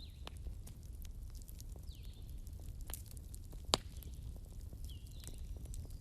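Wood fire burning: wood crackling with scattered snaps and one loud pop a little past halfway, over a low steady rumble.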